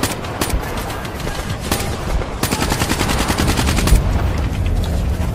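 Battle gunfire: a few scattered single shots, then a rapid machine-gun burst lasting about a second and a half from about two and a half seconds in, over a constant low rumble.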